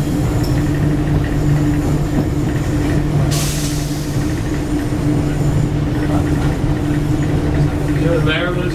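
Cab of a 1967 St. Louis Car Silverliner III electric multiple-unit railcar under way: a steady electrical hum over the rolling rumble of the wheels on the track. About three seconds in, a hiss of air sounds for about a second.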